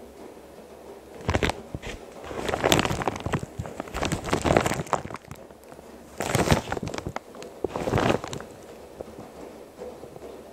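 Girbau commercial front-load washer on a hot wash: wet laundry tumbling and splashing in the water-filled drum. It comes as a run of loud swishing surges every second or so, then settles to a quieter churn near the end.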